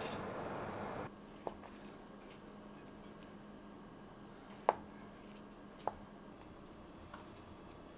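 Kitchen sounds: a rushing noise that cuts off suddenly about a second in, then a few light, sharp clinks and taps of utensils against dishes over a faint steady hum.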